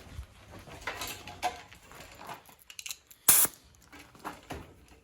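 Air compressor tools and hose being handled and put away: scattered rustles, clinks and knocks, with one short, loud burst of noise a little over three seconds in.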